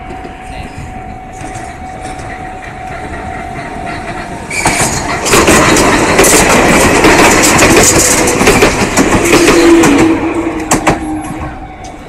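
An Enoden electric train passing close by, its wheels clattering and clicking over the rail joints. It comes in suddenly about four and a half seconds in, stays loud for about six seconds, and fades away near the end.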